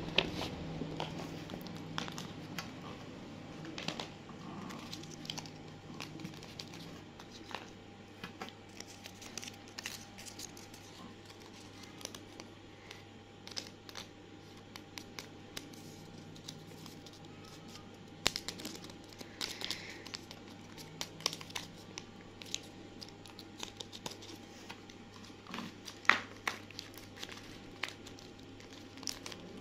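Paper crinkling and rustling as hands handle and unfold paper packets and slips, with scattered sharp crackles. Louder crackles come in clusters about two-thirds of the way through and again near the end.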